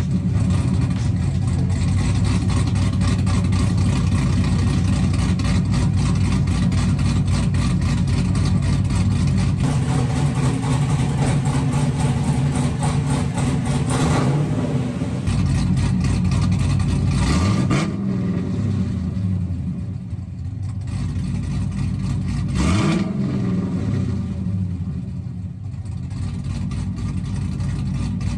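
LS3 V8 in an LS-swapped Chevrolet Camaro IROC-Z firing up and idling through its exhaust. It is revved briefly three times, about halfway through, a few seconds later, and again near the end.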